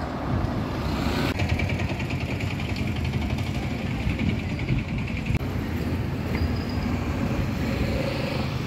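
A motor vehicle engine running close by, with a fast rattling beat for about four seconds, over a steady low rumble.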